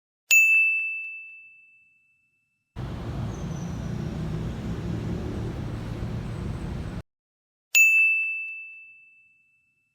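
A bright bell-like ding, struck twice: once just after the start and again near the end. Each ding rings out and fades over about a second and a half. Between them comes a stretch of steady low running noise that breaks off abruptly.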